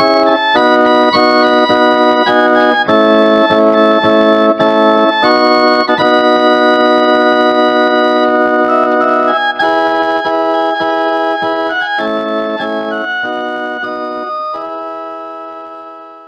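Instrumental karaoke backing music with no vocals: sustained chords that change every second or two, fading out over the second half as the song ends.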